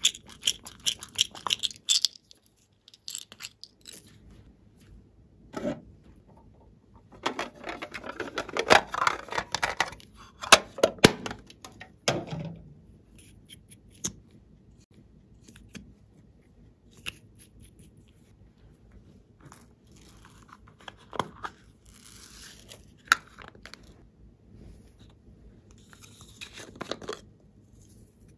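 Handling noises over a glass bowl of glossy slime: a squishy frog toy squeezed, then pearl beads and glitter sprinkles tipped into the bowl. They come as irregular bursts of small clicks, crackles and rattles, busiest about a third of the way in.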